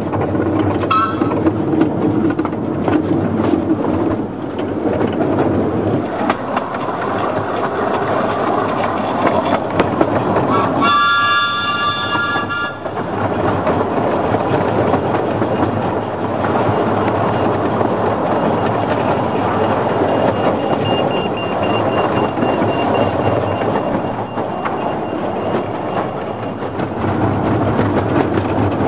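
A 15-inch gauge miniature passenger train running, heard from an open carriage: a steady rumble and clatter of wheels on rail. The locomotive sounds one whistle blast of about two seconds near the middle.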